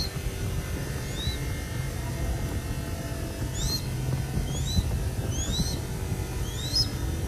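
A downy crested goshawk chick giving short, high, rising chirps, five of them at uneven intervals: begging calls at feeding time. A steady low rumble runs underneath.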